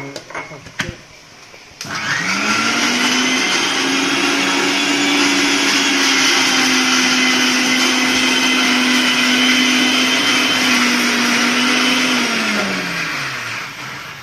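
Electric mixer grinder grinding ginger, garlic and black pepper with a little water into a paste. It follows a couple of knocks, starts about two seconds in, spins up to a steady whine, then winds down near the end.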